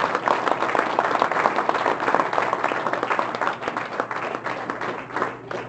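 Audience applauding: many hands clapping together, thinning out and fading near the end.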